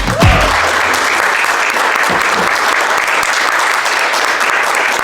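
Audience applauding: steady, dense clapping from many people.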